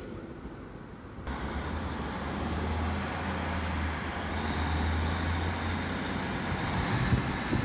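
Northern Class 156 Super Sprinter diesel multiple unit running with a steady low engine drone as it moves slowly along the platform. The drone starts suddenly about a second in, after quieter station ambience.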